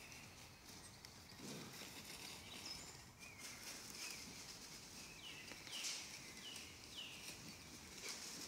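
Faint sounds of wild boar on a gravel forest track. There is a short low grunt about a second and a half in, soft steps throughout, and four short high calls, each falling in pitch, past the middle.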